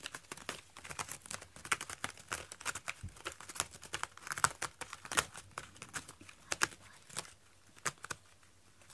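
A cat working a corrugated cardboard scratcher with its claws and face: quick, irregular scratchy rasps and crackles of cardboard, thinning out over the last couple of seconds.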